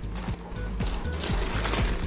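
Background electronic music with a steady beat, and a hissing swell of noise over the second half.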